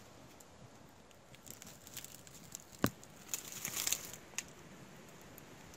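Light rustling and crackling with a few sharp clicks, the sharpest about three seconds in and a short crackly flurry just after it.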